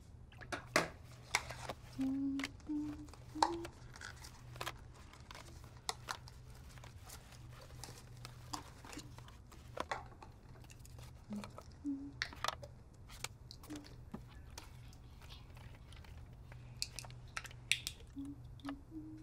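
Small objects being handled at a table: a scattered string of sharp clicks and taps with light crinkling, as paper and a small plastic bottle are fiddled with. A few short, low pitched sounds come between the clicks.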